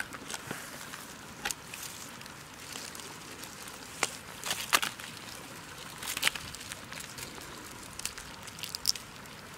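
Woven bamboo baskets creaking and crackling as they are handled, with a catch of crabs, snails and fish shifting inside. Scattered sharp clicks over a faint steady hiss.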